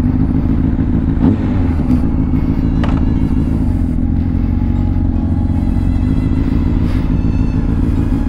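2005 Honda CBR600RR's inline-four engine running steadily on a test ride.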